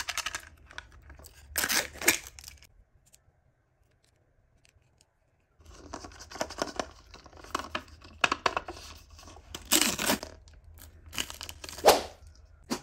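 Printed paper wrapper being torn and peeled off a plastic toy capsule, crinkling in close-up, in short bursts. It stops for a couple of seconds of near silence, then the crinkling and tearing goes on steadily, with louder sharp bursts near the end.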